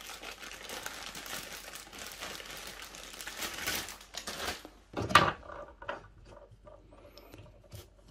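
Crinkling, crumpling rustle for about four and a half seconds. Then one sharp knock and a few light clicks as the hard plastic suitcase wheel and its hub cap are handled.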